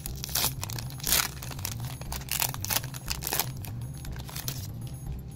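Foil Pokémon booster pack wrapper crinkling and tearing open in several short bursts, with the cards then pulled out of it.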